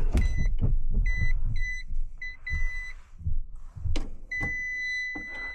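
Handheld electrical voltage tester beeping in a string of short high beeps, then holding one steady tone from about four seconds in: it is detecting live voltage at the heating unit's supply. Handling knocks and rustling run underneath.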